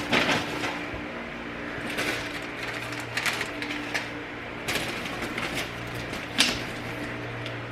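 Grocery packaging being handled: a few short rustles and knocks, scattered through, over a steady low hum.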